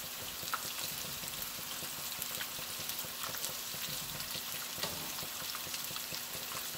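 Ground beef flautas (rolled corn tortillas) sizzling steadily in shallow oil at about 350 °F, with many small crackles and a couple of sharper pops, about half a second in and near five seconds.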